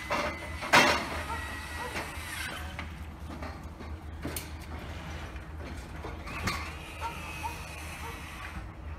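Work-site noise over a steady low hum: a single sharp metallic clank about a second in, a few lighter knocks later, and a faint steady machine whine.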